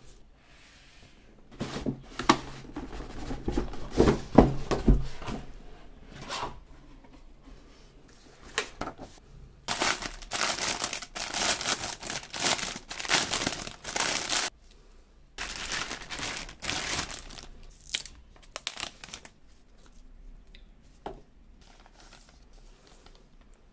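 Clear plastic packaging bags crinkling and rustling as gloved hands unwrap a router and its power cable, in several spells with pauses between. A few seconds in, heavier handling knocks and rubs of the cardboard packaging.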